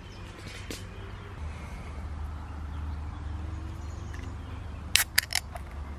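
Low steady rumble of distant road traffic, with a few faint bird calls, and three sharp clicks in quick succession near the end.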